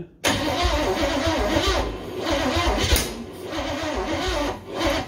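Starter motor cranking a Holden 253 V8 for about four and a half seconds, turning over unevenly without catching, then cutting off suddenly. It is a first start attempt after 20 years in storage, with fuel poured into the carburettor.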